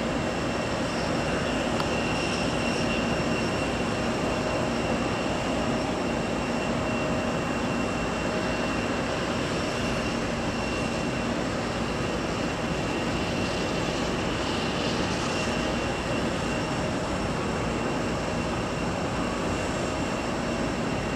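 Auxiliary power unit of a parked Airbus A320-214 running: a steady turbine whine of several held tones over a constant rushing hiss.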